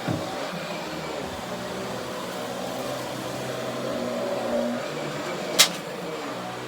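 Central vacuum running with a Riccar electric power head, a steady whir of suction airflow and brush motor. A single sharp click about five and a half seconds in.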